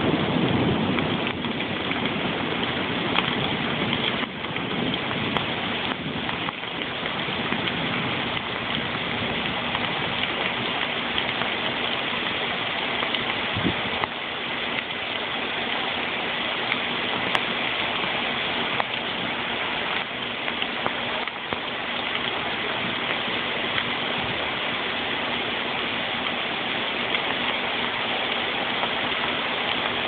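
Heavy thunderstorm rain pouring onto wet pavement and puddles: a dense, steady hiss of splashing drops that does not let up.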